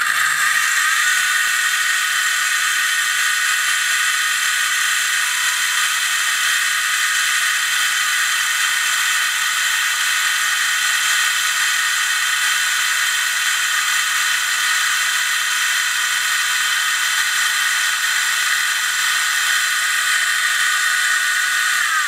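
ORCA Blitreme 3 brushless RC motor running flat out on a gear dyno at about 22,000 rpm, turning the dyno's gears. It spins up within the first second, holds a steady high whine, and starts to wind down at the very end.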